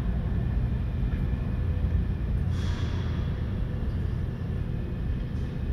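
R160 subway train rumbling away down the tunnel after departing the station, a steady low rumble. A brief hiss comes about two and a half seconds in.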